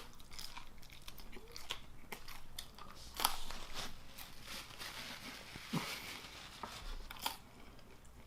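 Food packaging crinkling and rustling as it is handled, with scattered light clicks and taps.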